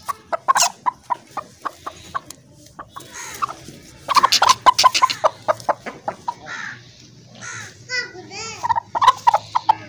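Aseel hen clucking repeatedly while held and handled, with a run of clucks about four seconds in and louder squawking calls near the end.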